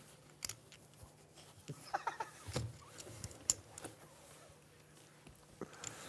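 Quiet room tone with a low steady hum and scattered small clicks and knocks. There is a brief faint murmur of voices about two seconds in and a soft thud just after.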